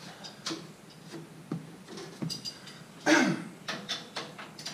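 Scattered metallic clinks and knocks from a Brunswick A2 pinsetter's steel frame and parts as a person climbs onto it and sits on the frame, the loudest knock about three seconds in.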